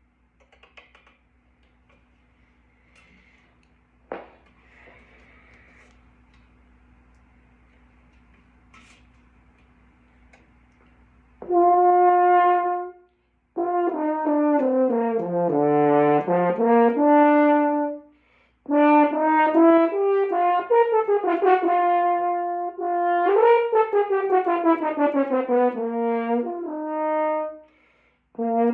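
Faint handling noises with one sharp click about four seconds in, then, from about halfway, a brass instrument playing warm-up exercises: long held notes and slurs gliding down and back up through its notes, with short breaks between phrases.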